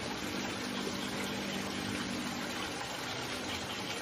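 Steady rushing of water flowing along a concrete channel, with a low steady hum underneath that stops near the end.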